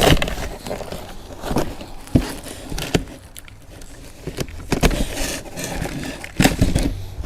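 Beadlock wheel hardware being handled: a bag of metal bolts and washers clinking, with scattered sharp clicks and knocks spread out irregularly.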